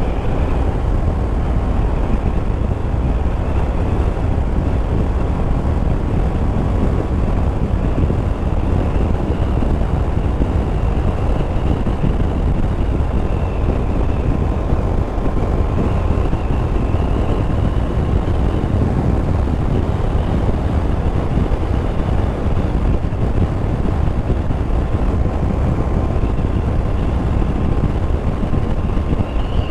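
Yamaha Tracer 9 GT three-cylinder motorcycle cruising at a steady speed: a constant rush of wind over the microphone with engine and tyre noise beneath, and a faint whine that wavers in pitch now and then.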